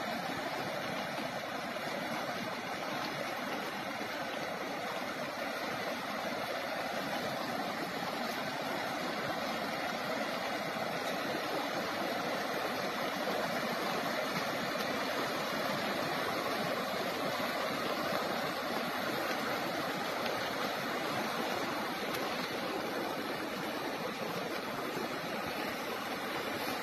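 River floodwater rushing steadily over flooded ground, a constant even rush of water with no change in level.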